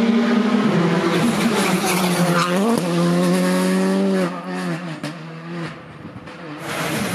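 Rally car engine at full throttle, its pitch stepping and climbing through the gears, then dropping away sharply about four seconds in as the throttle closes. A string of crackles and pops follows, and the engine note builds again near the end.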